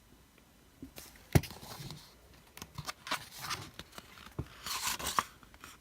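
Paper and plastic packaging being handled, with rustling, crinkling and sharp taps. After a quiet first second, the loudest tap comes about a second and a half in.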